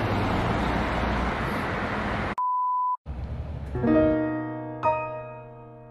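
Street traffic noise for about two seconds, cut off abruptly by a single steady electronic beep lasting about half a second. Soft piano music follows, with sustained chords that ring and fade.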